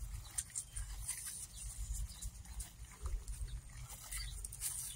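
Soft, scattered rustling of rubber-gloved hands rubbing a wet sponge along weed and grass stems, over a low rumble.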